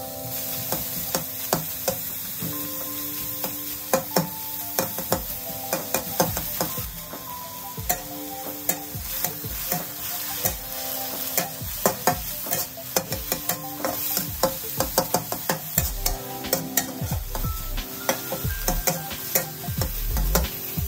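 Chopped pork filling sizzling in a wok as a metal spatula stirs it, the blade scraping and clacking sharply against the pan many times over a steady hiss of frying. The filling is being stir-fried until most of its liquid has cooked off.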